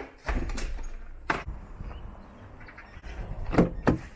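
Handling noise: about five separate knocks and clatters of objects being moved, the loudest pair about three and a half seconds in, over a low rumble.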